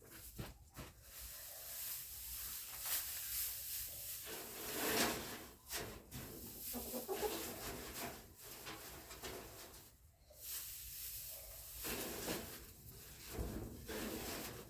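Loose hay rustling and crackling as it is handled and spread on a chicken coop floor, with a few chicken clucks around the middle.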